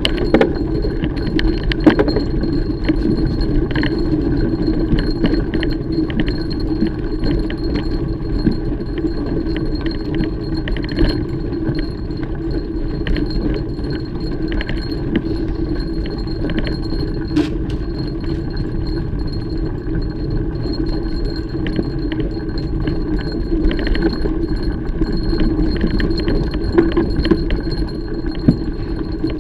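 Mountain bike ridden over a dirt trail: a steady rumble of tyres and air, with frequent small clinks and rattles from the chain and bike parts over bumps.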